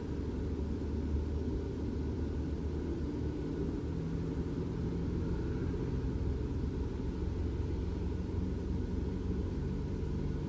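Nissan Altima running, heard from inside the cabin as a steady low rumble. A low drone grows a little stronger about four seconds in.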